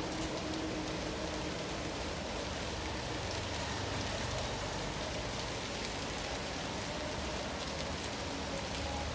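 Steady rain falling on wet concrete pavement, an even patter with no let-up.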